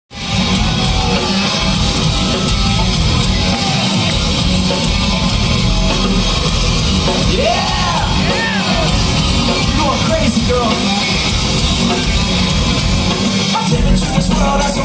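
Nu-metal band playing live, heard loud from within the audience, with yells and whoops from the crowd over the music.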